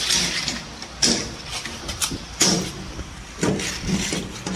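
An Airman PDW280 diesel welding generator's engine running, with irregular sharp clicks and knocks over it.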